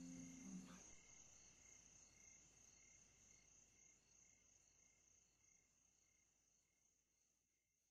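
Faint crickets chirping about twice a second, fading away. A held low musical note cuts off less than a second in.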